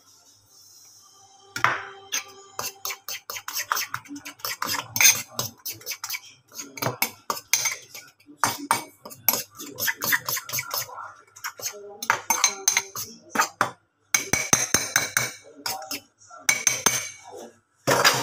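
Metal spoon clinking rapidly against a ceramic bowl while beating and mixing an egg and sardine mixture. The clinks come in quick runs with short pauses and start about a second and a half in.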